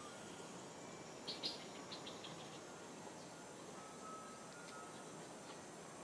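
Faint outdoor background hiss with a quick run of sharp, high-pitched chirps about a second and a half in, and a faint thin whistle near the four-second mark.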